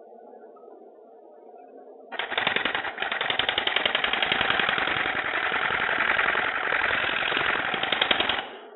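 Woodturning tool shear-scraping a thin-walled wooden hat spinning on a lathe to take down a small hump. It makes a loud, rapid rattling cut that starts suddenly about two seconds in and stops abruptly near the end. Before the cut only the lathe's low hum is heard.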